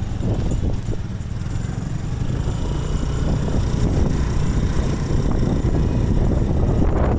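Steady low rumble of a moving vehicle, engine and road noise.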